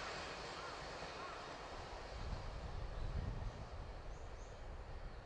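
Low rumble of a locomotive-hauled train of old-type passenger coaches behind an EF81 electric locomotive, fading away into the distance after it has passed.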